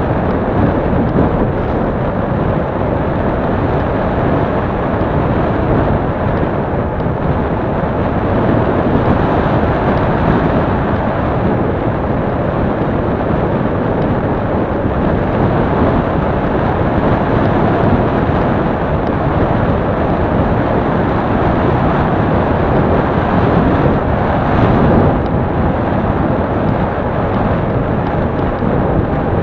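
Steady wind rush on an action camera's microphone on a moving bicycle, mixed with the rolling noise of the tyres on asphalt.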